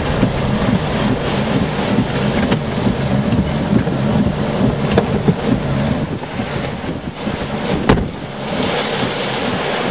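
Strong tornado-driven wind and heavy rain lashing the car and buffeting the microphone in a loud, gusting rumble. A single sharp knock comes about eight seconds in. After it the rumble eases into a steadier, brighter hiss of rain.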